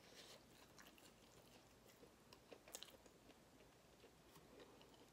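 Faint biting and chewing of a breaded vegan chicken nugget, with scattered soft crunches and mouth clicks over quiet room hiss.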